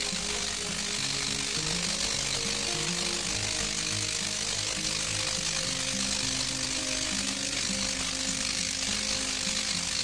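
Spark gap Tesla coil powered by two microwave oven transformers running continuously: a loud, steady, rapid crackling buzz from the firing spark gap and the discharge arcs. Background music with a low melody plays underneath.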